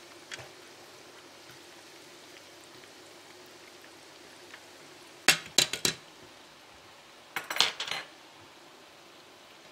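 Metal utensils, a fork and a wire spider skimmer, clinking against a frying pan in two short clusters about five and seven and a half seconds in, over the steady sizzle of makroud pastries deep-frying in oil.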